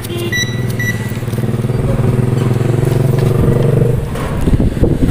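A motor vehicle engine running close by, a steady low hum that grows louder for a couple of seconds and then breaks up into rougher noise near the end. Early on, two short high beeps come from a digital clamp meter as its rotary dial is turned.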